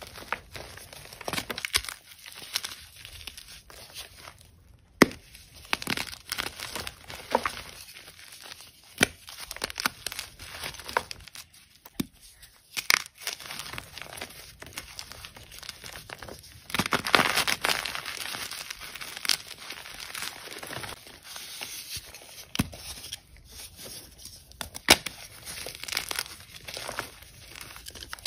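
Blocks of dyed gym chalk crushed and crumbled in the hands: dry crunching and crumbling, broken by sharp snaps as pieces break apart, with a busier, louder stretch of crumbling about two-thirds of the way through.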